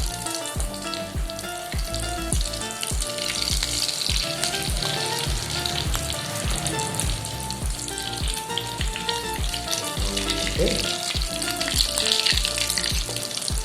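Potato-and-bread snacks frying in hot oil, a steady sizzle throughout, under background music with a steady beat.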